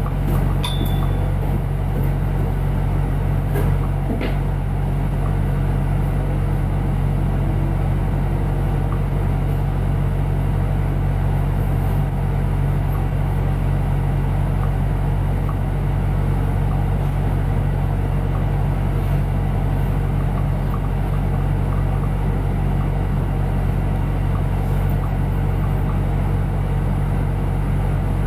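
Bus engine idling while the bus stands still, a steady low hum heard from inside the passenger cabin. There is a short high beep about a second in.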